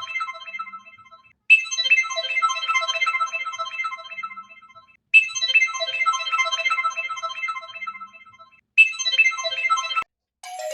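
A phone ringtone: a quick, tinkling melodic phrase of about three and a half seconds, played over and over with a short gap between repeats, then cut off suddenly near the end.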